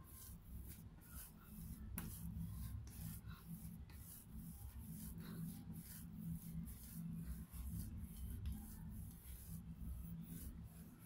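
Hands kneading bread dough on a wooden board: soft rhythmic pushing and rubbing strokes, about two to three a second, with a sharp click about two seconds in.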